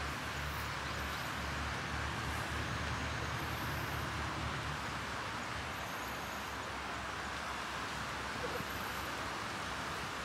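Outdoor ambience: a steady hiss with a low engine rumble that stops about five seconds in, and faint high-pitched chirps now and then.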